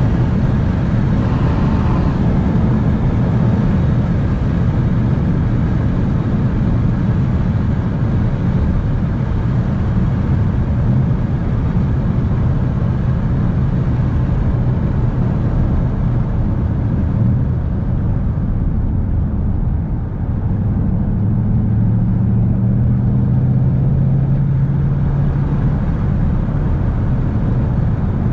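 A 2019 Ford Mustang GT's 5.0-litre V8 and its tyre and road noise, heard from inside the cabin as the car cruises steadily in fourth gear. The engine hum grows stronger for a few seconds about two-thirds of the way through.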